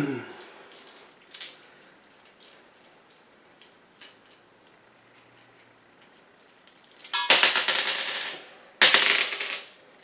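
Small metal hardware, bolts, nuts and washers, clinking as it is handled, with scattered light clicks and then two loud jangling rattles near the end, each about a second long.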